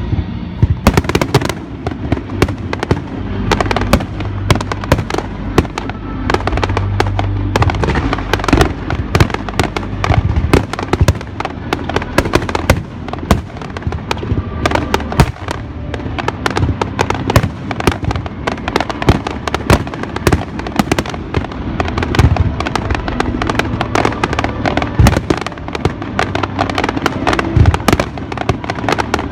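Fireworks display going off in a dense, continuous barrage of sharp bangs and crackles, many per second, with music playing underneath.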